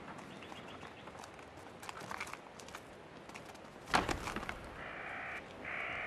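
Male Nubian ibex clashing horns: one sharp crack about four seconds in, with lighter knocks and clatter around it. Near the end come two short pitched calls, about a second apart.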